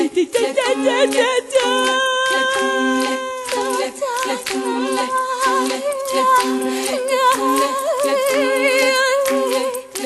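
Background music: unaccompanied vocal music, a voice holding long notes with a wavering vibrato over a repeating low sung pulse.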